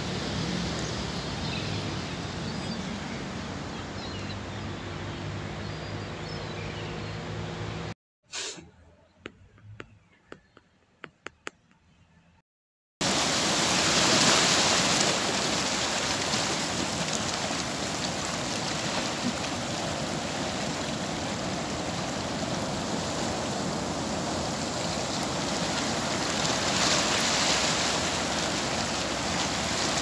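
Sea waves breaking and washing over shoreline rocks: a steady rushing of water. In the first part a low steady hum runs under it. About eight seconds in the sound cuts to a quiet stretch with a few clicks, and the rushing surf returns, louder, about thirteen seconds in.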